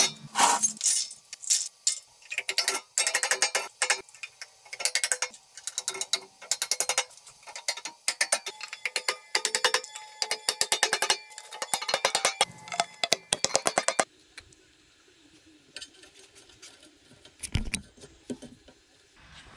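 Plastic end caps being pushed and knocked into the ends of square steel tubing: a fast run of sharp clicks and knocks that stops abruptly about two thirds of the way through, followed by a single thump near the end.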